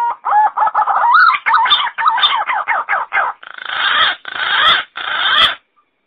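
Green pigeon calling: a quick run of short, wavering whistled notes, then three longer, harsher notes, stopping shortly before the end.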